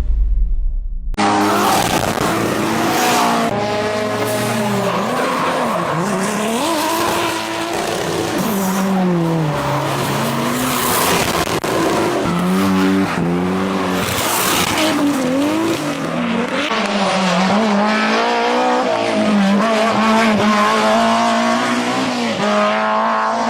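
Rally car engine revving hard, its pitch repeatedly climbing and dropping as it accelerates, shifts and lifts off, starting about a second in after a low rumble.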